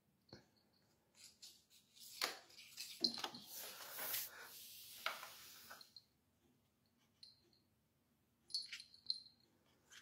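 Plastic bottle cap knocking and scraping on a hard stone floor as a kitten bats and paws at it: scattered light clicks, then a busy run of clattering and scraping in the middle, and a few more light knocks near the end.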